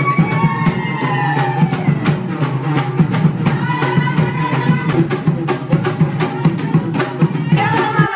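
Live drumming for a tribal folk dance: a drum beaten in fast, steady beats, with long held melodic notes over it.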